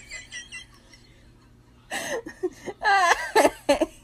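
A person laughing in high-pitched giggles, starting about two seconds in after a short lull.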